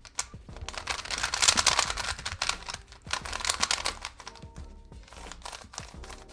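Plastic 3x3 speed cube being turned fast, its layers clicking and clacking in quick runs that thin out after about four seconds. Soft background music plays underneath.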